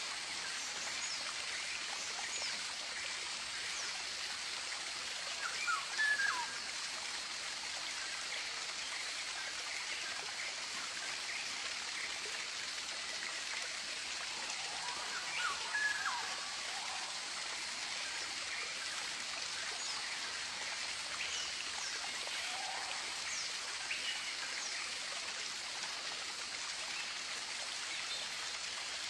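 Steady rush of a flowing stream, with scattered calls of tropical birds over it; the loudest are short, falling chirps about six seconds in and again around fifteen to sixteen seconds in.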